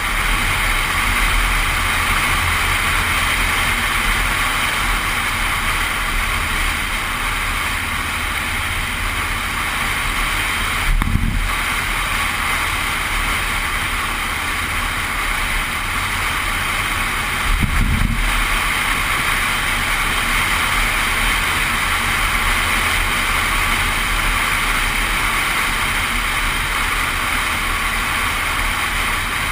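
Suzuki 4WD driving at speed along hard beach sand: a steady rush of wind and road noise over a low engine drone, with wind buffeting the microphone. Two brief low thumps, about 11 and 18 seconds in.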